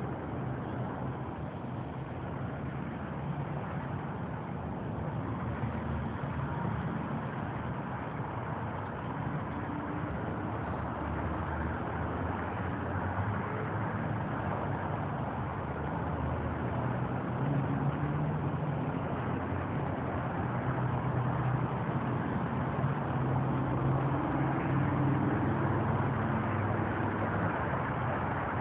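Steady rumble of motor vehicles, with an engine hum that comes and goes and grows a little louder in the second half.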